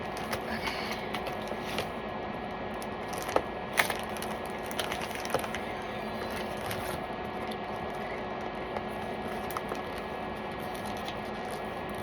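Plastic wrapping being picked at and peeled from a clear hard plastic laptop case: scattered small crinkles and clicks, with two sharper clicks about three and a half seconds in, over a steady background hiss.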